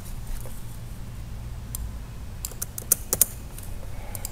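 Scattered computer keyboard keystrokes, with a quick run of several about two and a half to three seconds in, over a low steady hum.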